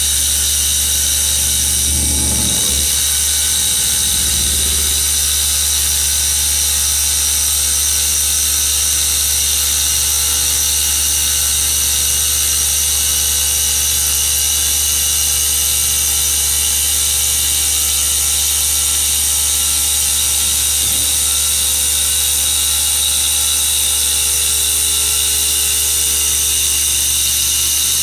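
A 5-axis CNC router's 12 kW water-cooled spindle running steadily, a high whine with many steady tones over the hiss of the tool cutting granite under a coolant water spray.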